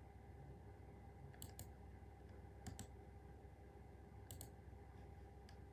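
Near silence over a low steady hum, broken by a handful of faint, sharp clicks, some in quick pairs: buttons being pressed on a Maschine beat-making controller.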